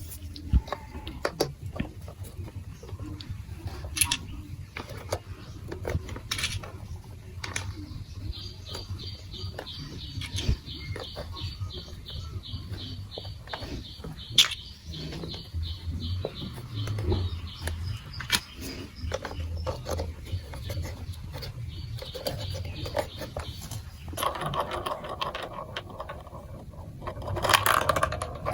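Plastic marble run blocks and marbles clicking and knocking. A long run of rapid, even, high ticks starts about eight seconds in, and a denser rattle follows near the end.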